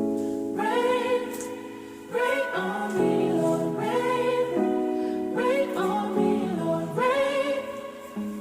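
Gospel song intro: steady held chords with wordless sung vocal phrases over them.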